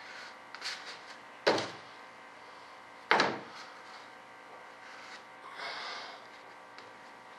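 Two sharp knocks about a second and a half apart as tools or parts are set down or tapped on a workbench, with light handling clicks before them and a brief rustle near the end.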